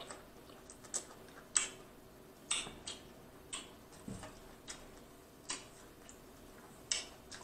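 Close-miked mouth sounds of a man chewing food: scattered wet smacks and clicks at irregular intervals, roughly one or two a second.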